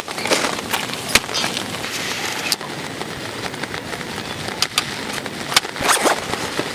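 Steady rain falling, with irregular sharp taps through it.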